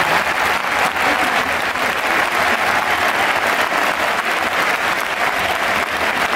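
Stadium crowd of football supporters applauding, a continuous mass of clapping.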